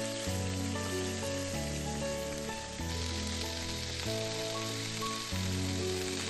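Background music with a repeating bass line and melody over a steady sizzle of food frying in a pan; the sizzle grows louder about three seconds in.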